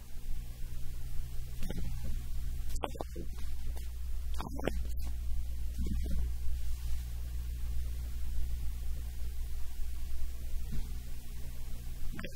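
Steady low electrical hum, with a few brief soft sounds from the man at the table scattered through it.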